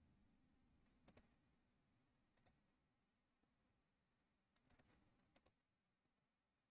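Four computer mouse clicks, each a quick double tick of button press and release, spread out between near silence.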